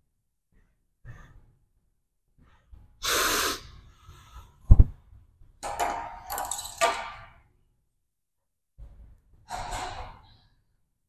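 A man breathing hard with sharp, gasping exhales, in several bursts, while he recovers from leg exercise. A short loud thump comes about five seconds in.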